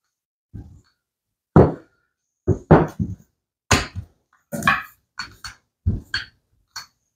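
Irregular thuds and knocks, about a dozen over several seconds, from bread dough being shaped and handled on a kitchen counter.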